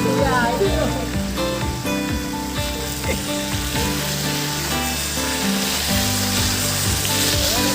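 Steady hiss of rushing river water, growing a little stronger near the end, under background music with held chords.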